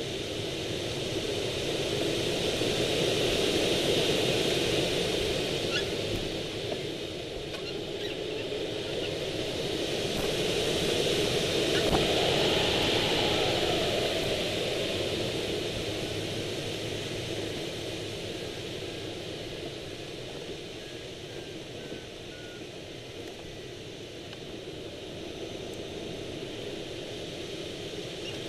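Airflow rushing past a Swift rigid-wing hang glider in flight, a steady windy hiss that swells twice, early and around the middle, as airspeed builds through wingovers, then eases off.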